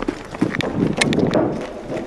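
Quick footsteps of a person running, a rapid uneven series of short hard steps.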